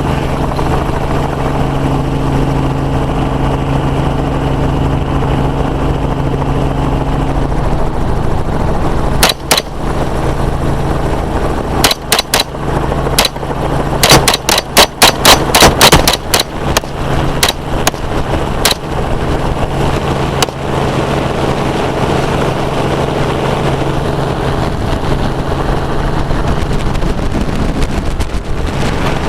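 Helicopter running steadily, with about twenty rifle shots fired from it at hogs: a pair about a third of the way in, a few more, then a rapid string of shots near the middle, tapering to single shots.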